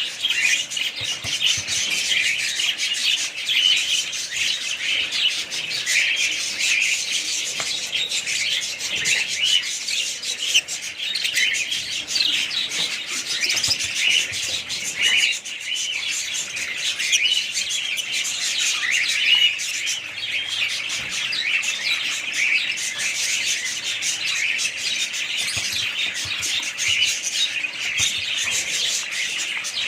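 Many small birds chirping at once: a dense, steady chatter of short, high, overlapping calls with no break.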